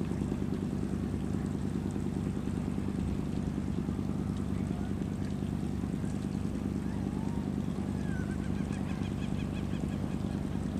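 Boat engine running steadily at an even pitch, a continuous low hum.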